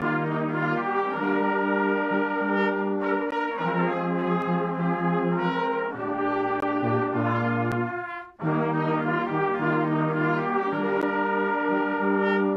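A brass ensemble of trumpets, French horn and trombone playing held chords together, with a brief break about eight seconds in before the chords come back.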